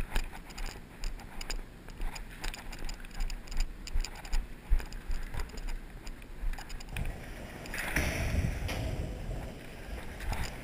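Footsteps on a debris-strewn concrete floor, about two a second, with gear rustling; a denser rustle of movement near the end.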